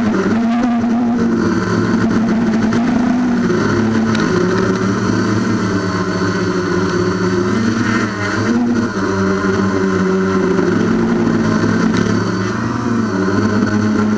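Traxxas Aton quadcopter's motors and propellers whirring, loud and close from the camera mounted on the drone, their pitch rising and falling again and again as the throttle changes in flight.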